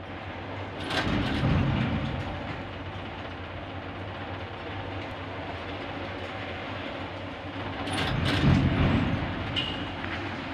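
Steady industrial rumble and hiss of a steel melt shop while molten steel is poured into a ladle amid showers of sparks. It swells louder and deeper about a second in and again around eight seconds, with a few sharp clicks.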